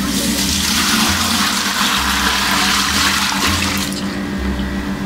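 Besan, yogurt and lassi batter being poured in a steady stream into a pot of fried onions and spices in oil. The pour stops about four seconds in.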